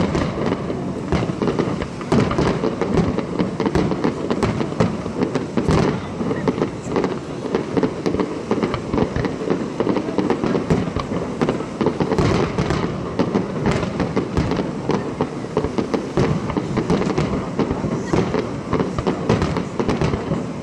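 Fireworks display: many aerial shells bursting and crackling in dense, overlapping succession, with no pause between the bangs.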